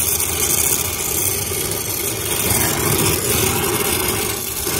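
Oxy-fuel brazing torch flame running steadily, a continuous rushing hiss over a low rumble, as a copper refrigerant-line joint is brazed.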